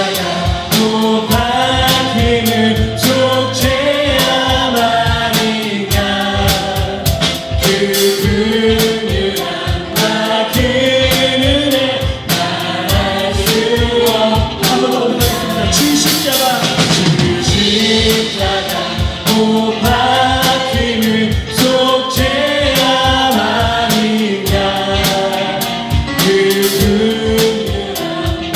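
Worship band and group of singers performing a gospel praise song, with a steady drum beat under the voices.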